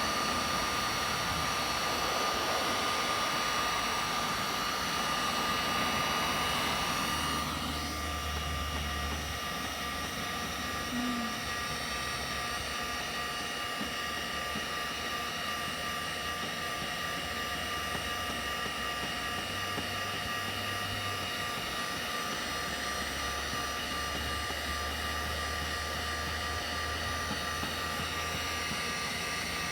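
Electric heat gun running steadily, its fan giving a constant whine over a rushing air noise. About seven seconds in, the whine shifts slightly and the sound gets a little quieter.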